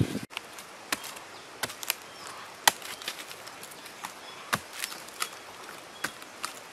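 Large knife chopping into a rotting log, about seven sharp strikes at irregular intervals, the loudest near the middle.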